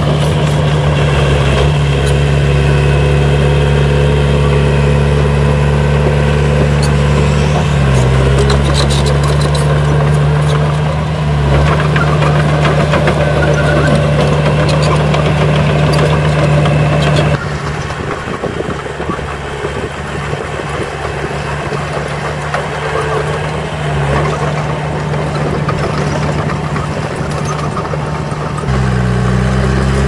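Small crawler bulldozer's diesel engine running steadily under load as it pushes soil, with a few clanks about a third of the way in. It drops quieter about halfway through and comes back up near the end.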